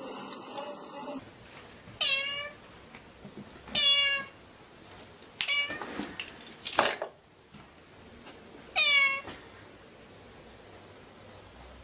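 A cat meowing three times, short high meows of about half a second each, a couple of seconds apart. Between the second and third meow there are two brief, harsher noisy sounds.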